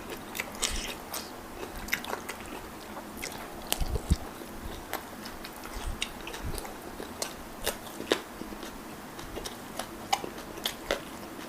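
A person chewing and biting food close to the microphone: wet chewing with many irregular crisp crunches.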